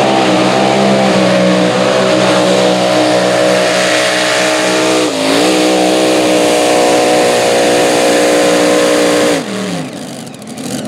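Mini rod pulling tractor's engine running at full throttle under load as it pulls the weight sled, holding a steady high note with a brief dip in revs about five seconds in. Near the end the throttle comes off and the engine note falls away.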